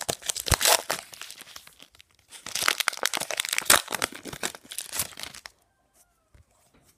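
Foil wrapper of a Pokémon trading-card booster pack being torn open and crinkled, in two spells of crackling, the second stopping about five and a half seconds in.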